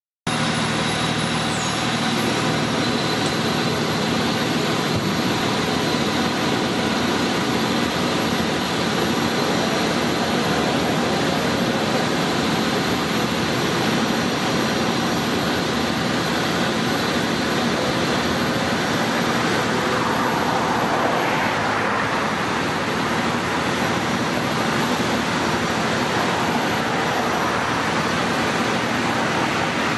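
Fire engine's diesel engine idling steadily, with a brief swell of passing-traffic noise about twenty seconds in.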